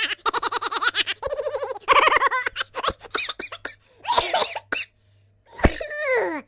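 Silly laughing sound effect: a high, rapid giggling laugh in quick pulses with brief pauses, ending in a cry that slides down in pitch near the end.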